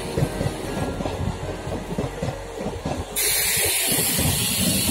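Passenger train coaches running past on the track, wheels clattering over rail joints over a low rumble. A steady hiss comes in suddenly about three seconds in.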